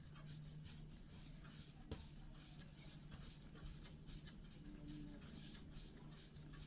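A palm rolling soft yeast-dough pieces into balls on a tabletop: faint, repeated rubbing strokes against the surface. There is a single small click about two seconds in.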